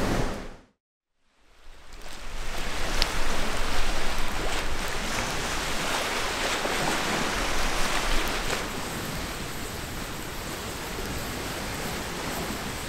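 Wind blowing through bare lakeside trees, as a wide rushing noise; it cuts out briefly about a second in, comes back in gusts that are loudest a few seconds later, and eases to a steadier, lower level in the second half.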